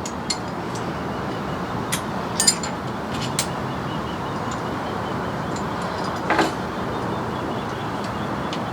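Scattered clinks and clanks of metal hand tools and cart parts being handled, about half a dozen, the loudest about two and a half seconds in and a short rattle about six and a half seconds in, over a steady background rush.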